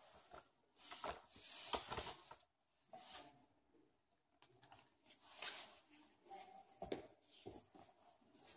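Faint rustling swishes with a few sharp clicks, handling noise of someone moving about close to the microphone.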